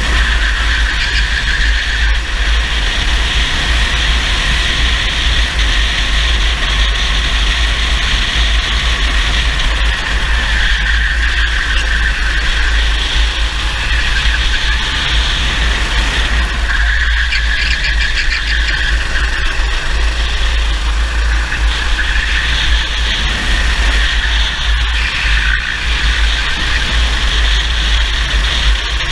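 Racing kart's engine running flat out at race speed, its note rising and falling through the corners, under heavy wind rumble on the onboard camera.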